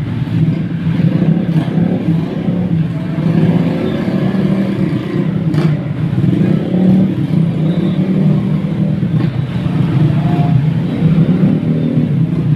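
Many small motorcycles and scooters riding past in a continuous stream, their engines blending into one steady, loud drone.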